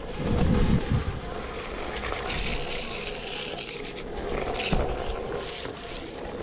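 Single-wheel electric boards rolling down a wet dirt trail: a steady tyre hiss on the wet ground with a faint steady motor hum, and wind buffeting the microphone with heavy low rumbles in the first second.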